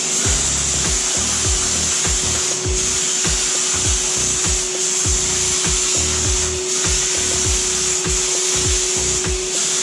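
Titan Capspray HVLP turbine spray gun spraying bathtub finish coat: a steady hiss of air and atomised coating over a constant turbine whine, with the hiss breaking off briefly a few times as the trigger is let go between passes.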